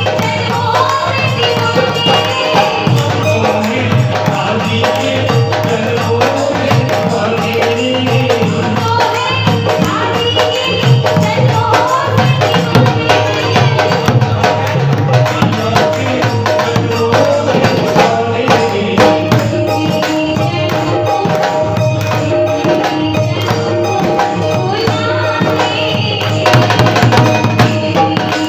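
Hindi devotional bhajan music: a wavering melody over a steady tabla rhythm with jingling percussion.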